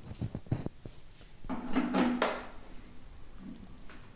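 Light knocks and scrapes of steel kitchenware: a spoon scraping a pan, and a mixer-grinder's steel jar being set onto its base. A louder ringing scrape comes about two seconds in.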